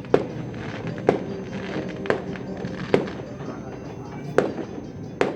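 Fireworks going off: six sharp bangs at irregular intervals of about a second, over background music.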